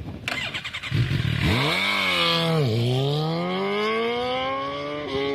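Suzuki GSX-R 750 inline-four sport-bike engine with an Akrapovic slip-on exhaust accelerating, its pitch climbing. The pitch drops sharply at an upshift near the middle, then climbs again.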